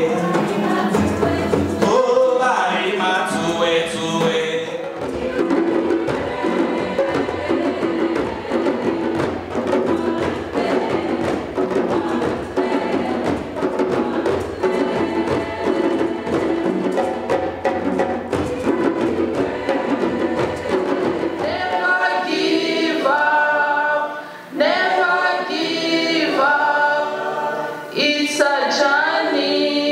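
Mixed choir singing to hand-drummed djembes played as a group. About three-quarters of the way through, the drumming stops and the voices carry on alone.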